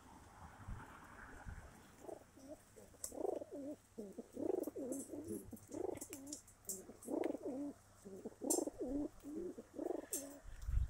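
Domestic pigeons cooing, a run of low warbling coos repeating one after another from about two seconds in.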